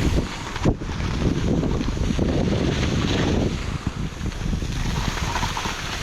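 Wind buffeting the microphone over the rushing hiss of skis sliding through heavy, wet snow, with a brief louder jolt under a second in.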